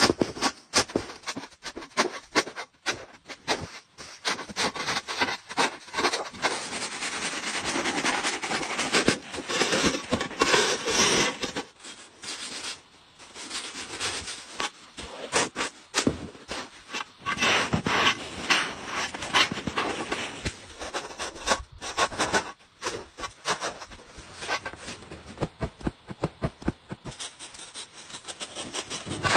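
Packed snow being dug and cut by hand: a long run of short scraping strokes from a shovel blade and a hand saw working into a snowbank.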